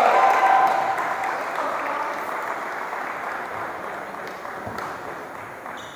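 Crowd in the stands cheering and applauding at the end of a wrestling match, dying away steadily over several seconds.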